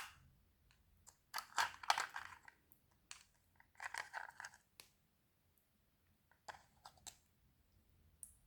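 Slime being squished and stretched by hand: three bursts of sticky crackling and popping, with quiet gaps between them.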